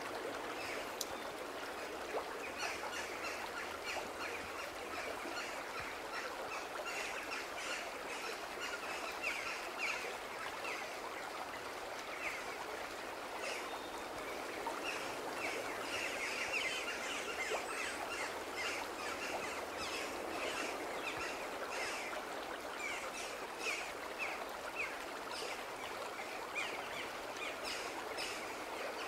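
Forest stream rushing over mossy boulders in a steady wash, with birds chirping repeatedly over it.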